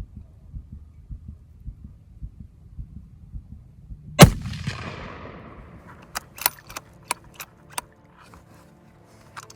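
Low heartbeat-like thumps about two a second, then a single rifle shot about four seconds in with a long echoing tail. After it comes a string of sharp metallic clicks and clacks as the bolt-action rifle's bolt is worked to eject the shell and chamber another round, short-stroked so that two rounds catch.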